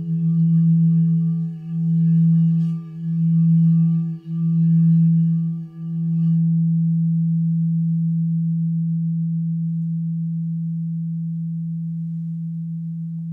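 Frosted quartz crystal singing bowls sounding a low, steady hum with fainter higher overtones, swelling and dipping in slow pulses about every second and a half. About six seconds in the pulsing stops and the higher overtones die away, leaving one smooth low tone slowly fading.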